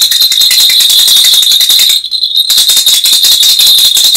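Plastic hand-clapper toy shaken hard: a fast, unbroken clatter of plastic clacks with a steady high-pitched tone under it. The shaking stops for half a second about two seconds in, then starts again.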